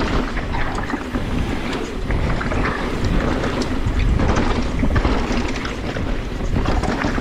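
Wind buffeting the microphone over the noise of a mountain bike going fast down a rough downhill trail, with many small knocks and clatters from the tyres and bike over the ground.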